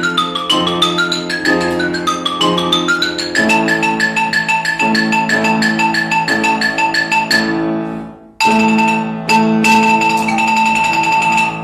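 Marimba played fast with mallets over piano accompaniment: quick runs of notes sweeping down and back up, then rapid repeated strikes on the same notes. A little past the middle the music dips and breaks off for a moment, then comes back loud with hammered repeated notes.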